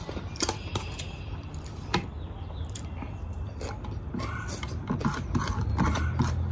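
Eating with the fingers from a plate: scattered small clicks and taps of fingers and food on the dish, with mouth sounds of eating. A low rumble grows near the end.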